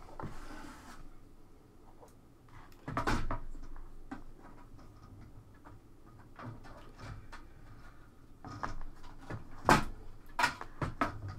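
Hands handling the Amstrad PCW 9256's metal shield plate, ribbon cable and wiring in its opened plastic case: scattered clicks, knocks and rustling, the loudest knocks about three seconds in and again near the end.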